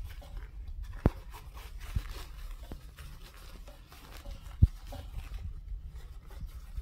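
Snowsuit fabric rustling as hands work a flexible heating plate into a pocket, with two short sharp thumps, the louder one past the middle.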